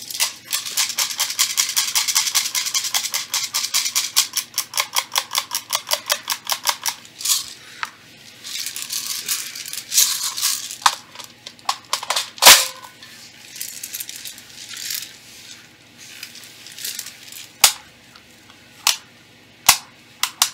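Winding wheel of a high-capacity airsoft magazine being turned: a fast run of even ratchet clicks, about six a second, for roughly the first seven seconds. Then comes rattling with scattered clicks and knocks, the loudest a sharp knock about twelve seconds in.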